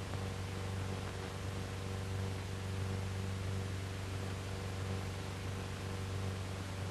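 Steady hiss with a low, even hum, the background noise of an old film soundtrack; the launch itself is not heard.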